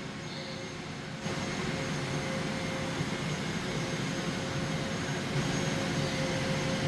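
Fiber laser welding machine running: a steady noisy hum with a thin high whine, stepping up louder about a second in.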